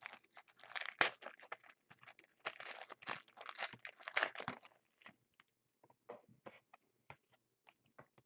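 A trading-card pack wrapper being torn open and crinkled, a dense crackling that stops about four and a half seconds in, followed by scattered light clicks as the cards are handled.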